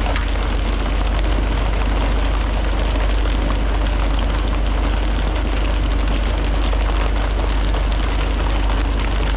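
A fishing boat's engine running steadily at sea: a constant loud low drone under an even hiss of wind and water.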